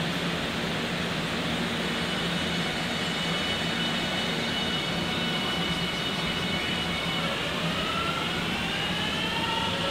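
JR Shikoku 8000 series electric train standing with a steady hum from its equipment. From about seven seconds in, its traction motors whine up in several rising tones as it starts to pull away.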